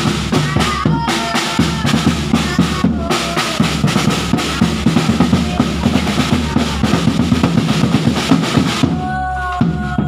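Group street drumming for a sahur wake-up round: a large bass drum and other drums beaten in a fast, steady, loud rhythm, thinning out near the end.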